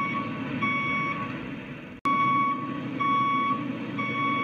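Electronic beeper sounding short repeated beeps about every half second, like a vehicle's reversing alarm, over a steady low motor hum. The sound cuts out briefly about two seconds in.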